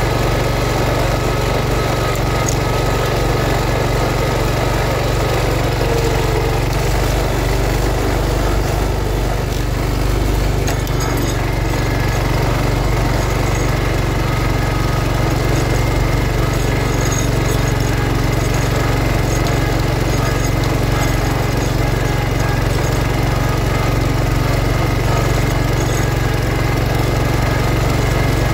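John Deere 140 garden tractor's single-cylinder Kohler engine running steadily under load while pulling a sleeve-hitch moldboard plow through sod. The low engine note shifts slightly about ten seconds in.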